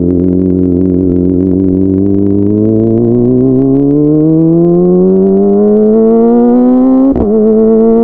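Kawasaki ZX-25R's inline-four engine through a DX Generation Pro Race full-system exhaust, held at a steady pitch at first and then rising steadily in revs under acceleration. There is a brief break in the sound about seven seconds in.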